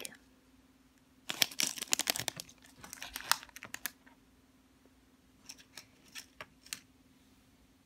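Clear plastic bag around a squishy toy crinkling and clicking as it is handled and set down: a dense burst of crackles between about one and three and a half seconds in, then a few light ticks.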